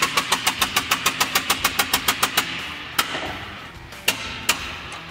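Ratchet wrench clicking fast and evenly, about seven clicks a second, with a faint hiss underneath. The clicking stops about two and a half seconds in, and then there are just two single clicks.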